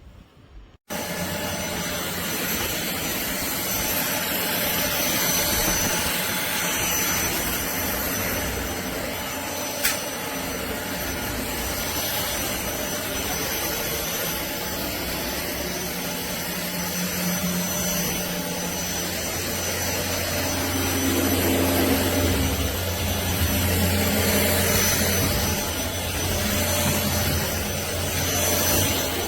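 DIFFULL V20 cordless stick vacuum running, a steady loud rush of suction over a motor hum, starting abruptly about a second in. The motor note changes about two-thirds of the way through.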